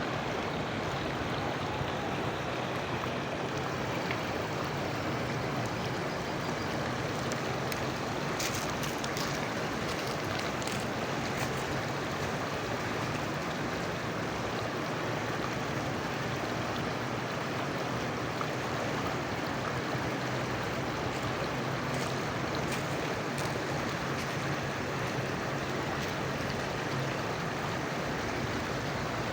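Steady rushing of moving water, an even noise with no break, with a few faint brief high ticks or splashes about a third of the way in and again about three quarters in.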